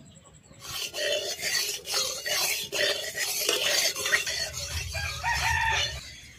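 Flat metal spatula scraping and stirring around the inside of a metal kadai in repeated rasping strokes, spreading a pool of oil across the pan. The scraping starts about half a second in and eases off just before the end.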